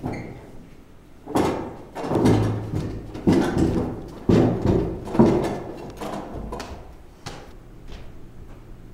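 Heavy footsteps, five loud thumps about a second apart, each echoing briefly in a large hall, then a few lighter knocks.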